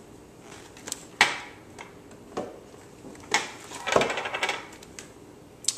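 Kitchen handling sounds: a few separate knocks of items being set down on the counter, then a metal spoon clinking and scraping against a container for about a second.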